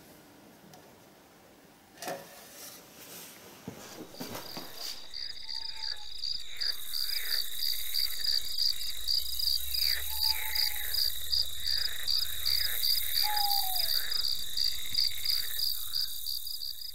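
A faint knock about two seconds in, then from about four seconds on a chorus of crickets chirping in a steady high pulsing rhythm, about three chirps a second, with lower calls that bend in pitch.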